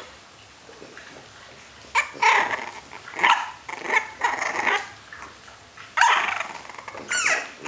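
Five-week-old French Bulldog puppy barking: a series of short barks, starting about two seconds in.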